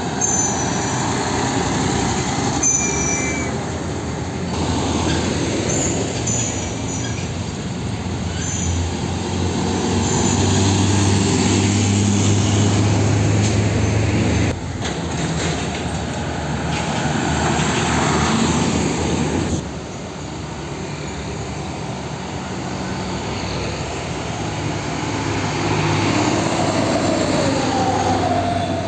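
Heavy diesel dump trucks driving past on a road, first an old Nissan Diesel six-wheeler, their engines droning steadily over tyre and traffic noise. The sound changes abruptly twice, at about 14 and 20 seconds in, as the shots change.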